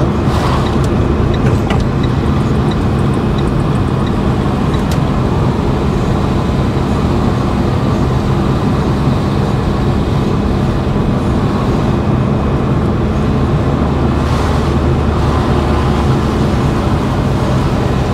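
Renault Clio's engine and tyre noise heard from inside the cabin while driving, a steady low hum over road rumble. A few light, evenly spaced ticks, about two a second, come in the first few seconds.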